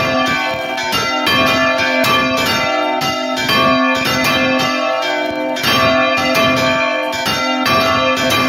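Church bells ringing close up, the filmed bronze bell swinging full circle on its counterweighted iron yoke in the Spanish style. Strikes come several a second and overlap, each leaving a long ringing tone. This is a peal calling the faithful to mass.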